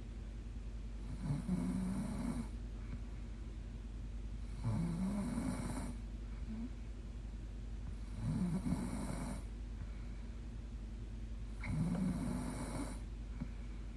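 A young woman snoring in her sleep: four snores about three and a half seconds apart, each lasting about a second.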